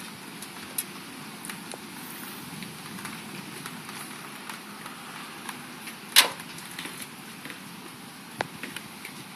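Steady outdoor hiss with scattered sharp clicks and pops, the loudest about six seconds in.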